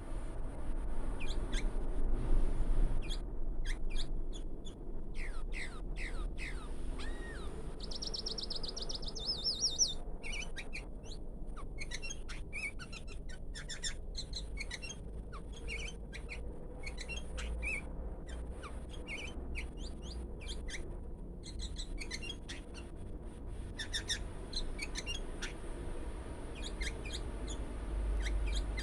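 Sooty-headed bulbul (kutilang) giving an unusual string of short, high chirps and squeaky notes, with a fast rattling trill about eight seconds in.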